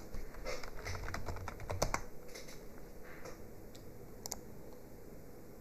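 Typing on a computer keyboard: a quick run of keystrokes in the first two seconds, then a few single clicks spaced out after.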